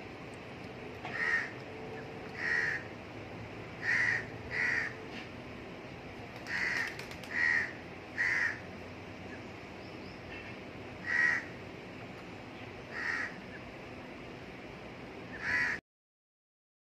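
A crow cawing, about ten single harsh caws at irregular intervals over a low steady background. The sound cuts out completely near the end.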